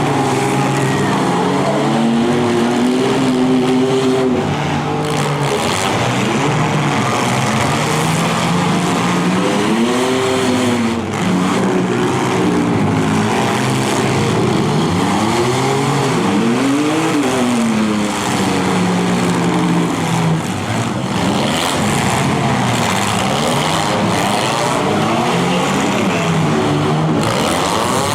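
Several demolition derby cars' engines revving hard and dropping back, overlapping, over a continuous din.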